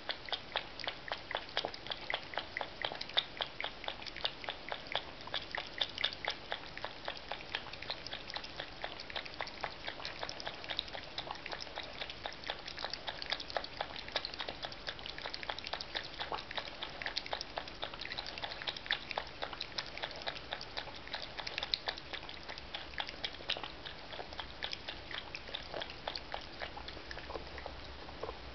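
A cat lapping water from a basin with its tongue: a steady run of quick, wet clicks, several a second, with no pause.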